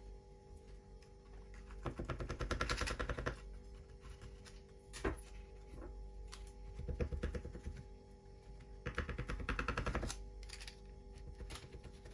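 Stainless-steel adjustable rectangular cake frame being slid and resized by hand, giving three bursts of rapid metallic clicking, each about a second long, with a few single clicks between them.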